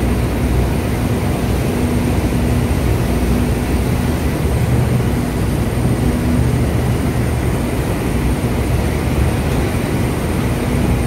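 Speed boat's engines droning steadily under way: a loud, even low hum with a couple of steady low tones, over the rush of churning water.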